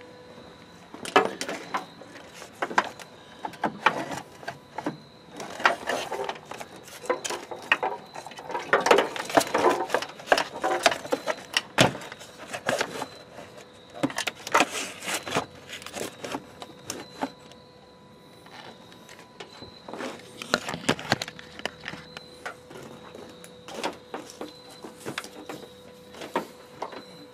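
Irregular rustling, scraping and clicking of wire in plastic loom being pulled and fed up through a pickup truck's engine bay by hand, mixed with camera handling knocks.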